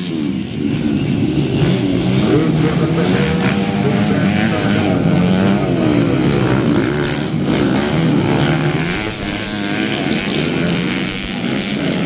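Several motocross dirt bikes racing, their engines revving up and down as they shift and pass. The engine notes overlap, rising and falling throughout.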